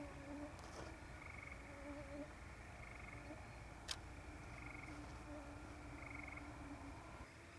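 Faint night chorus of frogs: short pulsed trills repeating about every one and a half seconds over lower, wavering calls. Two sharp clicks, one at the very start and one about four seconds in.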